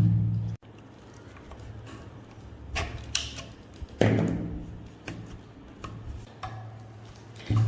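Background music: deep drum hits about every four seconds over a low held tone, with a few sharp clicks between them.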